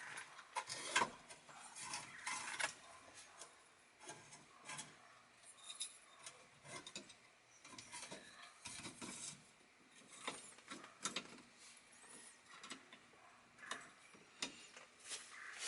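Faint, irregular clicks and short scrapes of small metal parts and hand tools being worked on a steering column as a turn signal switch is fitted with its screws.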